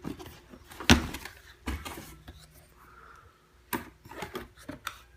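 Cardboard shoebox being opened and handled: a run of sharp knocks and taps, the loudest about a second in, with light paper rustling between them.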